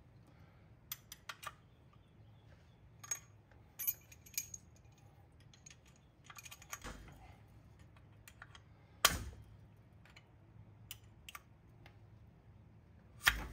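Light metal clicks and scrapes of hand tools, a pick and then a flat pry tool levered with a socket extension, working a pressed-in crankshaft oil seal loose from the engine's front cover. The clicks are irregular, with a sharper clink about nine seconds in and another near the end.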